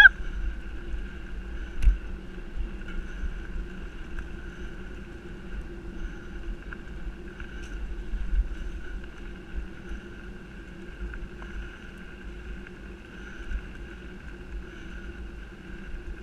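Bike rolling fast over a dirt forest track, with steady tyre and drivetrain noise and a faint steady hum, and wind rumbling on the camera's microphone. A brief high-pitched call right at the start and a small knock about two seconds in.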